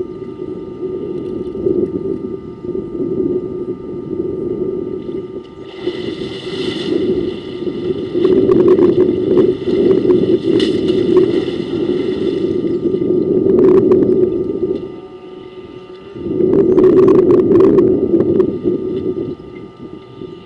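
An African elephant splashing and sloshing water in a waterhole with its trunk and legs: a rough, surging water noise that rises and falls, with several sharper splashes, over a faint steady high whine.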